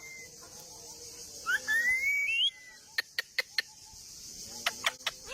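Parrots calling: one rising whistled call, then two quick runs of short, sharp chirps, over a steady high insect hiss.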